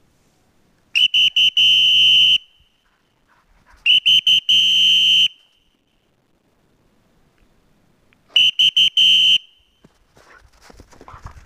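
A dog whistle blown three times, each blast a few quick pips running into one longer steady high note. Near the end there is a scattered crunching, like steps in snow.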